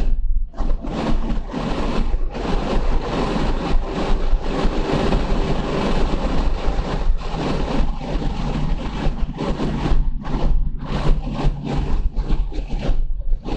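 In-car noise of a 2014 Subaru BRZ at around 100 mph on a racetrack straight, picked up by a windshield-mounted dashcam: engine, tyre and wind noise with a heavy low rumble. The noise is rough and uneven, with brief dips.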